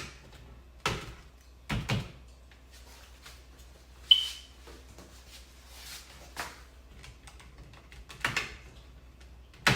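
Plastic clicks and knocks from an old wall thermostat's cover being pried open and handled, a few separate taps spread out, with one sharp snap about four seconds in.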